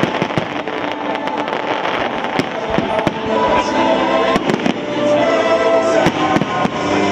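Fireworks going off in rapid succession, many sharp bangs and crackles, with music playing underneath that becomes clearer about halfway through.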